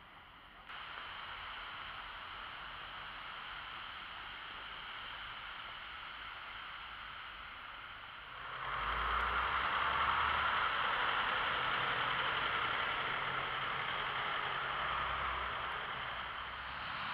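Street ambience in snowfall: a steady hiss of traffic and wet road noise, stepping up about a second in and rising again a little past halfway, when a low vehicle rumble joins it.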